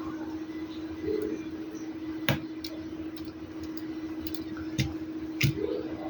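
A handful of short, sharp clicks and ticks at irregular intervals over a steady low hum.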